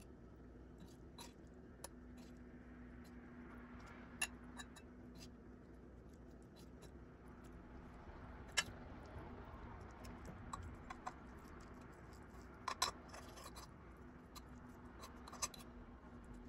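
Someone eating: faint chewing with scattered sharp clicks, over a steady low hum.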